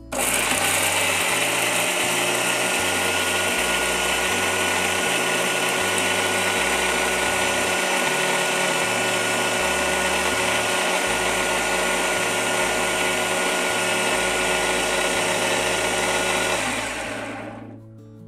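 Preethi Zodiac electric mixer grinder running at speed, grinding thick tomato, carrot and coriander chutney with no water added. It holds a steady whirr for about seventeen seconds, then is switched off and winds down near the end.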